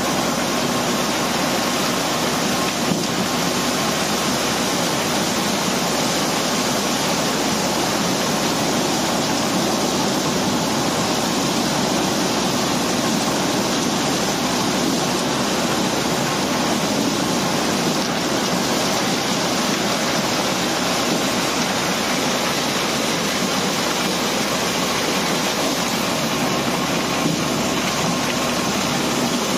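Cobblestone pouring and sliding from the pile onto a running conveyor belt as a barge is unloaded: a steady rushing rattle of stones that does not let up, over a faint machinery hum.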